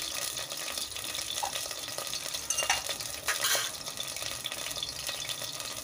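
Tomato-and-onion masala with added water and oil sizzling steadily in a steel pot over the flame, a soft, even hiss. A few short clicks about halfway through.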